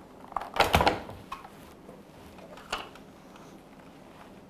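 Control board cover on a dishwasher console being handled and lifted off: a quick cluster of clicks and knocks about half a second in, then a few lighter single clicks.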